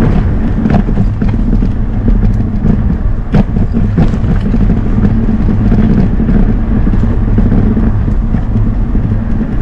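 A small vehicle riding over brick paving: a steady motor hum under the rumble of the tyres on the bricks, with a few sharp knocks from bumps about three and four seconds in.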